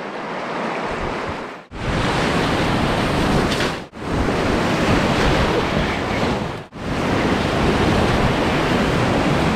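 Rushing river whitewater close around a kayak, a steady loud rush that is softer over a shallow riffle at first and louder through the rapids, broken by three brief gaps where clips are joined.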